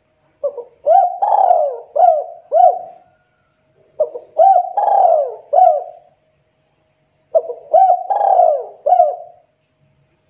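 Spotted dove (tekukur) cooing: three phrases of about five low coos each, separated by short pauses.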